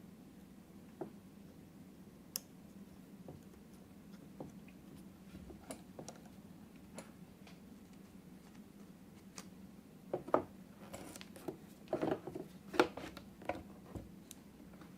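Scattered small clicks, taps and rustles of hands handling small parts and tools at a workbench, busiest and loudest from about ten seconds in, over a faint steady hum.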